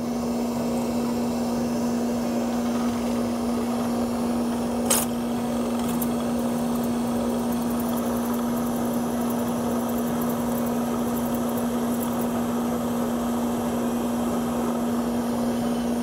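Drill press and dust collector running steadily with an even hum while the carbide-insert pen mill trims the end of an acrylic pen blank, with a single sharp click about five seconds in.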